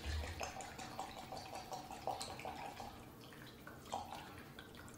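Rice vinegar pouring from an upturned bottle into a NutriBullet blender cup that already holds liquid. It trickles and glugs quietly and irregularly.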